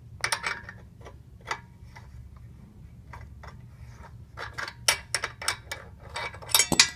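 Irregular light metallic clicks and clinks from hand tools (a wrench and crank puller) working on a spin bike's crank, loudest in a quick cluster near the end.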